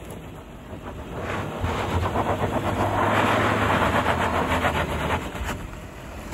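Suzuki Jimny's 1.5-litre four-cylinder petrol engine revving hard on a loose dirt climb, with its tyres scrabbling and spraying dirt. The engine note swells about a second in, holds for a few seconds and drops away near the end.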